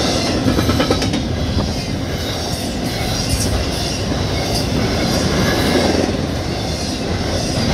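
Double-stack intermodal well cars rolling past at speed: steel wheels rumbling steadily on the rails, with clicks from the wheels over the track.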